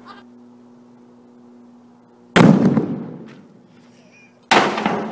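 A car airbag goes off with a loud bang about two and a half seconds in, launching a drum placed over it into the air. A second loud bang follows about two seconds later.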